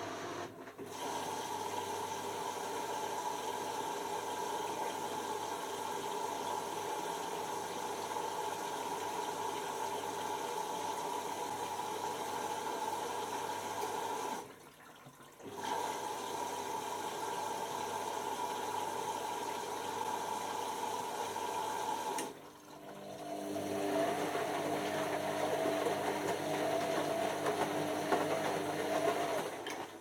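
Beko WM5100S front-loading washing machine tumbling a wash: the drum motor hums steadily with laundry and water sloshing in the drum. The drum stops briefly twice, and after the second stop it runs again with a lower-pitched whine before stopping near the end.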